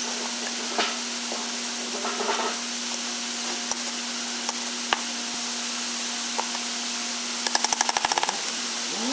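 Workshop tool sounds over a steady mechanical hum: scattered sharp metallic clicks, then a quick rattling run of strikes, about ten a second, for under a second near the end.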